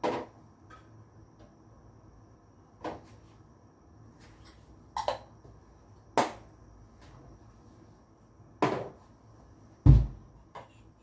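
Kitchen utensils and containers knocking as they are handled and set down: about six separate knocks a second or two apart, the loudest near the end with a dull thud.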